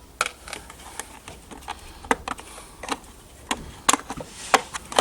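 Scattered light clicks and knocks of hard plastic parts being handled as a stand mixer's housing is lifted open.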